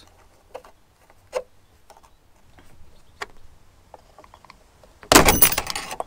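Faint clicks of a screwdriver and spanner working on a screw and nut, then about five seconds in a sudden loud metallic clatter with a ringing tail as the motorhome door's sprung metal door-stop bar springs free.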